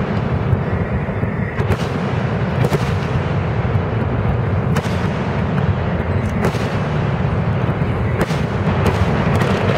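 Aerial fireworks shells bursting in quick succession: many overlapping booms make a continuous deep rumble, with sharper bangs standing out every second or two.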